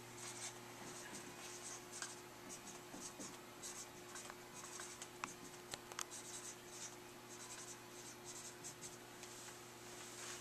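Dry-erase marker writing on a whiteboard: faint, short rubbing strokes with a few sharp ticks as the tip touches down and lifts.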